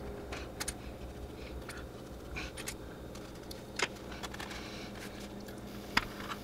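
Light clicks and taps of plastic model kit hull halves being handled and squeezed together, a few scattered ones with the sharpest about four seconds in and near the end, over a steady low hum.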